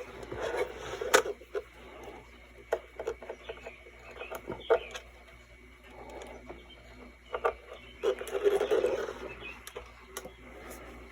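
Scattered light clicks and rustling as hands handle a vintage dictation machine and plug in its audio and power cables.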